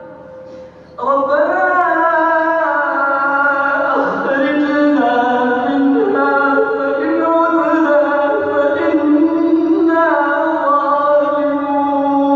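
A man reciting the Quran in the melodic tajweed style, drawing out long held notes with ornamented turns in pitch. The voice comes in about a second in, after a short quieter moment.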